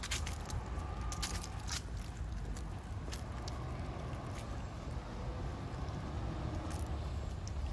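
Outdoor city ambience: a steady low rumble of distant traffic, with a few scattered sharp clicks.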